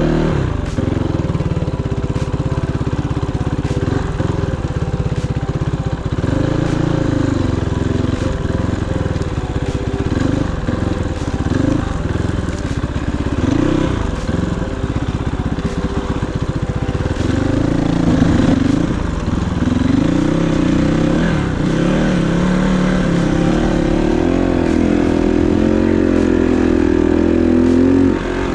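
Kovi 450i Pro single-cylinder dirt bike engine running under way, its revs rising and falling over and over as the bike is ridden.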